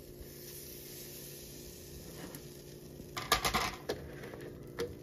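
Metal spoon clinking and scraping against a frying pan as butter is knocked off it: a quick run of clinks about three seconds in and a single clink near the end, over a faint steady hum.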